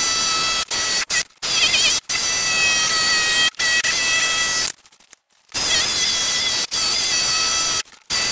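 Jigsaw cutting through an MDF sheet, running with a steady whine. It stops briefly several times, the longest pause coming about five seconds in.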